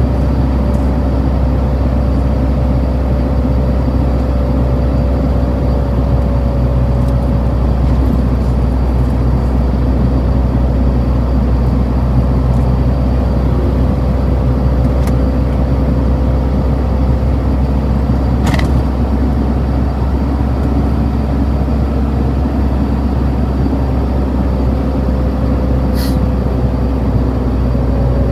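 Steady low drone with a faint held tone, like a running engine, unbroken throughout, with two brief sharp clicks about two-thirds of the way through and near the end.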